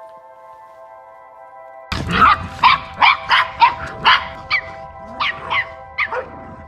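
A small dog yapping, starting suddenly about two seconds in: a quick run of about a dozen sharp, high yaps, two or three a second, each falling in pitch. A steady, held music chord plays underneath.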